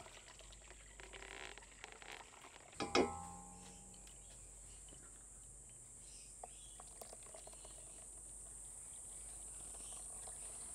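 Steady high chirring of insects in the background, with one sharp metallic clank and brief ringing about three seconds in as the stainless steel pot is set down, then faint scraping of a wooden spoon working custard through a mesh sieve.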